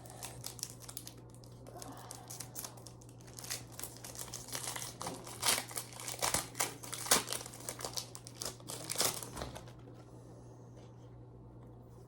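Foil wrapper of a Japanese Pokémon card booster pack crinkling and tearing as it is opened and handled. The crackling comes in dense, irregular bursts and stops about ten seconds in.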